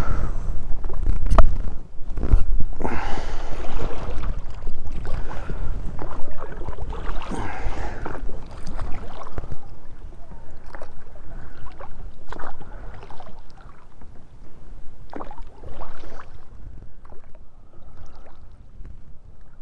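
Water swishing and splashing in irregular strokes about every one to two seconds as a small pontoon boat is rowed through a lake, with wind rumbling on the microphone. It grows quieter toward the end.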